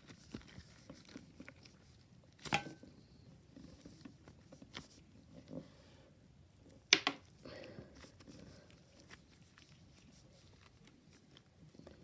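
Slime being worked and pulled apart by hand, giving small sticky clicks and crackles, with two sharper, louder pops about two and a half and seven seconds in.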